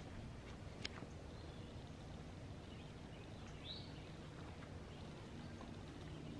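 Quiet outdoor garden ambience, a steady low background noise. There is a single sharp click about a second in and a short bird chirp a little past halfway.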